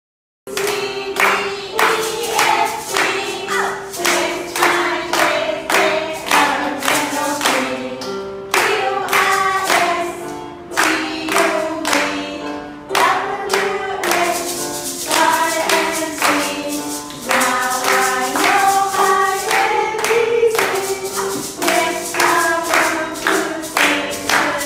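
A song sung over keyboard accompaniment, with a steady clapping beat, starting about half a second in.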